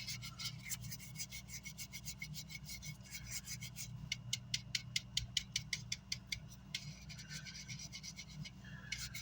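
Rapid back-and-forth scrubbing on the amplifier's power-supply circuit board as burnt residue is cleaned off, several scratchy strokes a second and busiest midway through, over a steady low electrical hum.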